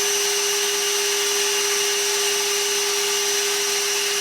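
Ridgid Cordless NXT wet/dry vacuum running steadily on a single 3 Ah Octane battery, a constant whine over the rush of air. Its suction is dropping as the battery runs down after about 15 minutes of runtime.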